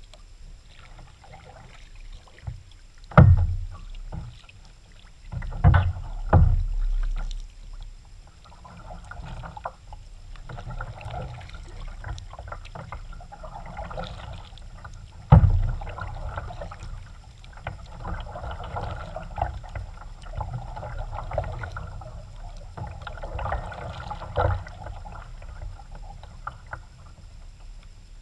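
Kayak paddling: the paddle blades dip and splash in the water stroke after stroke, with several loud knocks in the first half and one more near the end.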